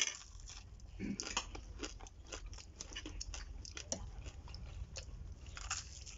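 Close-up biting and chewing of crispy fried frog: a sharp crunch at the start, then irregular crunches and chewing throughout.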